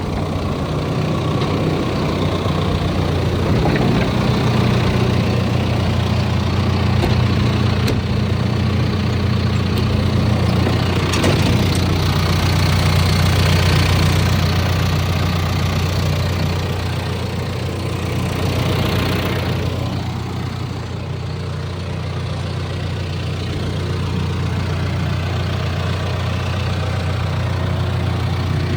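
John Deere 410K loader backhoe's diesel engine running steadily near idle, swelling slightly louder through the middle and easing back about two-thirds of the way through.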